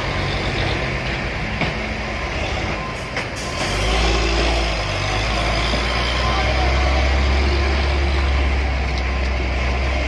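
Heavy diesel dump truck labouring up a steep hairpin climb, its engine rumbling low and growing louder about four seconds in as it comes close. A brief hiss of air sounds about three seconds in.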